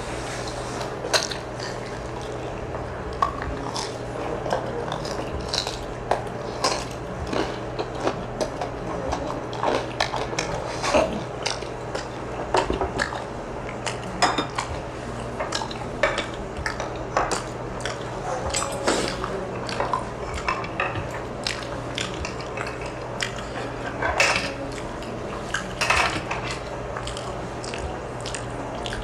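Eating utensils clicking and scraping against bowls and dishes, with irregular sharp clinks about every second and a few louder knocks near the middle and toward the end.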